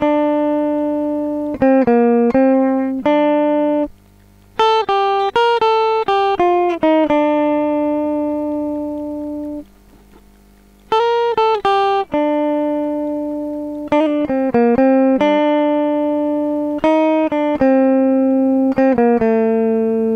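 Lead guitar solo played back dry and clean, with no effects on it: single-note melodic phrases with quick runs. It comes in three phrases, with short breaks about four seconds and ten seconds in.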